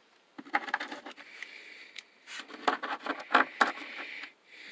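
Small metal air-hose quick-connect fittings being handled: a scattered run of light clicks, taps and scrapes, busiest in the second half.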